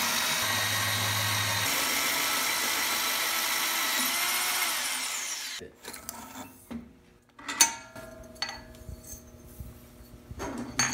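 Hole saw on a tubing notcher cutting through metal tube, a steady loud cutting hiss that winds down with a falling pitch about five seconds in. Then light metal clinks and one sharp knock as the cut tube is handled.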